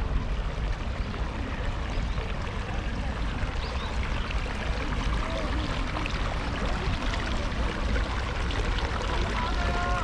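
Outdoor park ambience: a steady noise with a deep rumble underneath, and faint voices of people nearby, one voice briefly clearer near the end.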